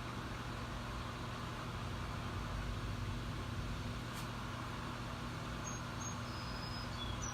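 Steady low mechanical hum with a hiss over it, unchanging throughout, and a few faint, short high chirps in the second half.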